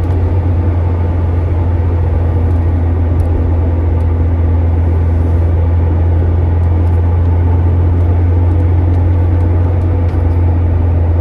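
Acura Integra heard from inside the cabin while driving: a steady low drone of engine and road noise that holds even throughout.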